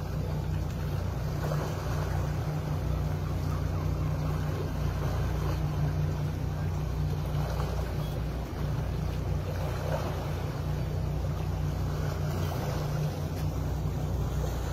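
Twin Mercury Verado V12 outboard engines running at low speed, a steady low hum, over a haze of water and wind noise.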